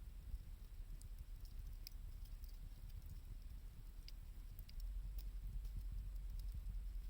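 Wood fire crackling, with sparse scattered pops and ticks, over a low rumble of blizzard wind that grows stronger about five seconds in.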